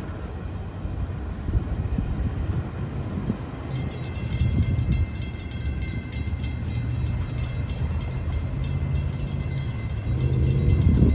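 Freight train rumbling past a grade crossing. From a few seconds in, the crossing's warning bell rings in evenly repeated strokes over the train noise.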